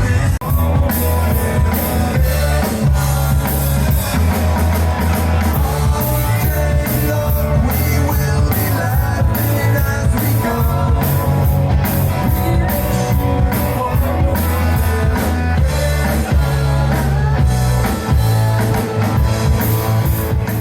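Live rock covers band playing loud through the PA, with drum kit, bass, guitar and singing. Heard close to the speakers, so the sound is very loud and squashed flat.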